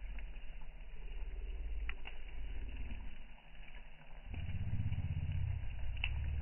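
Wood bonfire burning, with a few sharp crackles and pops from the burning logs over a low rumble that swells twice, loudest near the end.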